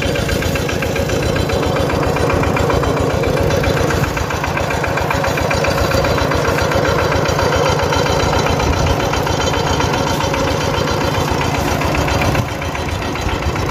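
An engine running steadily, with a fast, even beat.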